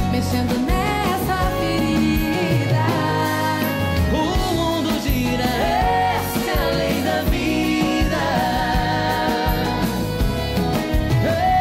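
Live sertanejo band music with a steady beat.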